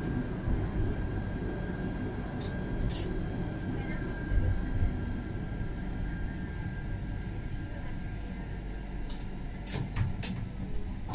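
Alstom Citadis tram running slowly along street track, heard from inside the front of the car: a low rumble with a steady thin whine that fades out about eight seconds in. A few sharp clicks come around three seconds and again around ten seconds.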